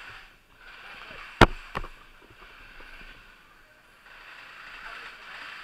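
Rustling and rubbing of a body-worn camera and clothing as its wearer moves, with a sharp click or knock about a second and a half in and a smaller one just after.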